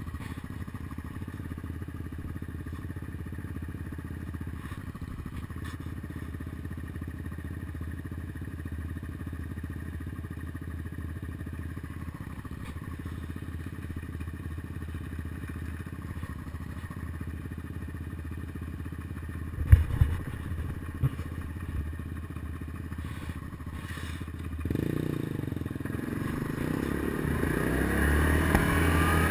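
ATV engine running steadily at low speed on a gravel road, with a few sharp knocks about two-thirds of the way in. In the last few seconds the engine revs up and grows louder as the ATV accelerates.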